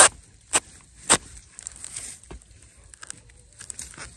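Narrow-bladed digging spade chopping into the earth at the base of a wild bamboo shoot: three sharp strikes about half a second apart, the first the loudest, followed by light crackling of soil and dry leaves.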